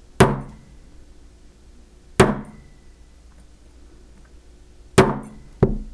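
Brass mallet striking a steel design stamp to punch tiny asterisks into a copper bale on a bench block. Four sharp metal strikes, the last two about half a second apart, each ringing briefly.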